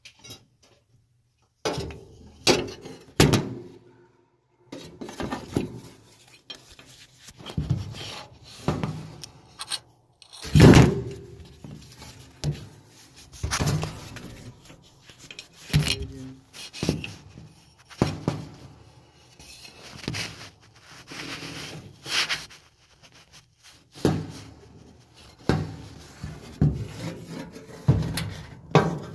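Irregular knocks, clicks and scraping rubs of hands and a tool working on a dryer's pulley mounting in a cramped cabinet, as the pulley's screw is worked back in; one sharper knock about ten seconds in.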